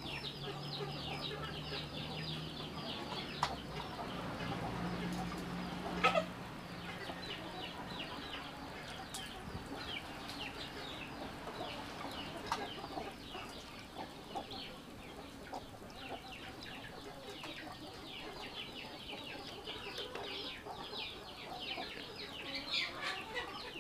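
Chickens clucking and chirping continuously in the background, a dense run of short, high calls. A few light clicks from a spoon stirring in a small mesh strainer over a glass.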